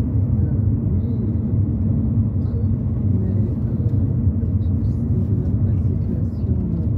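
Car driving at a steady speed, heard from inside the cabin: a continuous low rumble of engine and tyre road noise.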